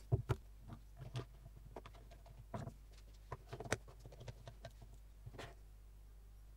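A block of paper held between wooden boards is knocked twice on a cutting mat to square it. This is followed by scattered light clicks, knocks and rubs as plastic quick-grip bar clamps are worked onto the boards.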